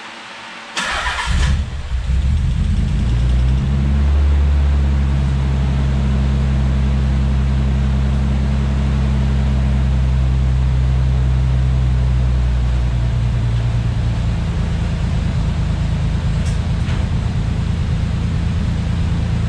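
Nissan 300ZX's 3.0-litre V6 cranked briefly by the starter, catching and settling into a fast idle, which drops a little about thirteen seconds in.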